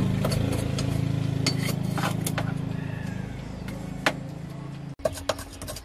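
Metal scraper clinking against caked dried mud and a metal tray, a few sharp clinks over a steady low hum that fades gradually and cuts off about five seconds in.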